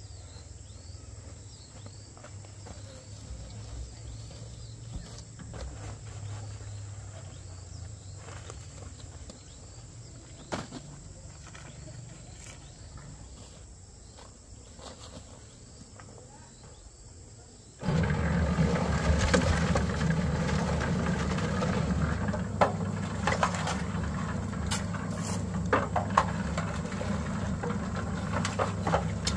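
Faint insect chirping over a low hum. About 18 seconds in, a loud, steady engine sound begins abruptly, with its weight in the low end and occasional sharp clanks.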